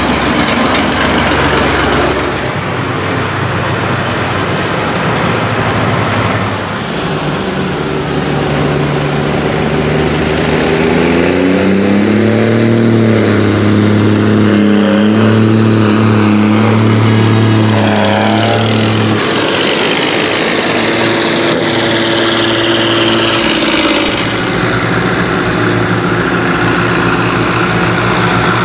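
Tractor engines running as a column of tractors drives past. About a third of the way in, one engine rises in pitch and holds a steady note. A little past the middle a high pitch sweeps downward, and the engines carry on at a steady note.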